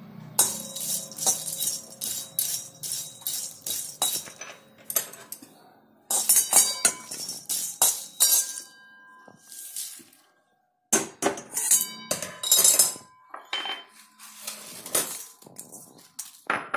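A spatula scraping and knocking against an iron kadhai while green cardamom pods are dry-roasted, the pods rattling over the metal. The strokes come in quick irregular runs with a faint metallic ring, broken by a short silence a little past the middle.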